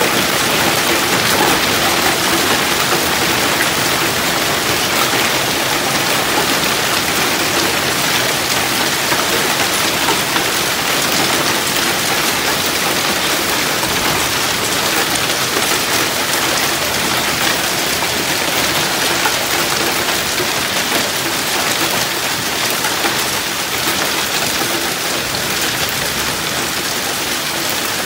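Hailstorm: hail and heavy rain falling steadily in a dense hiss of many small impacts, easing slightly near the end.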